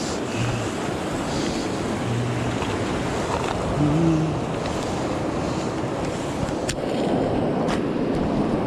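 Surf washing over a rocky shore, a steady rushing noise, with wind on the microphone. Two sharp clicks come near the end, about a second apart.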